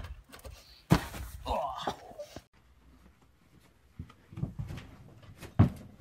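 A heavy thud about a second in as a person lands from a jump, followed by a short noisy scramble. Later come lighter footfalls and a thump as someone runs and takes off for a flip in a small room.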